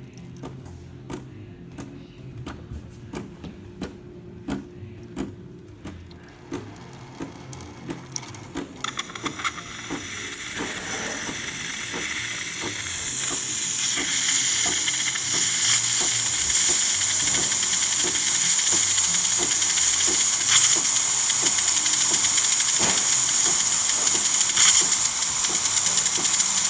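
DeLonghi Magnifica espresso machine's steam wand: first the pump humming with a run of clicks as it purges water, then steam coming through about nine seconds in, building over a few seconds into a loud, steady hiss.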